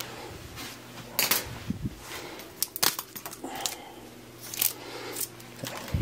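Irregular sharp clicks and short rustles of small items being handled, a few at a time and some louder than others, over a faint steady low hum.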